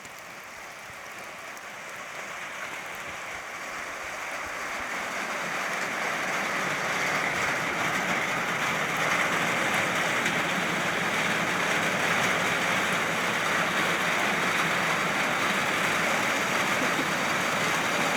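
Rain falling, growing heavier over the first several seconds and then pouring steadily.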